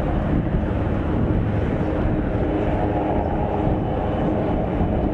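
Aircraft engine noise: a steady, even drone with a heavy low rumble and faint held tones in the middle range.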